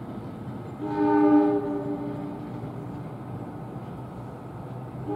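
Train air horn sounding a chord blast of about a second and a half, with a second blast starting at the very end, over the steady rumble of the train.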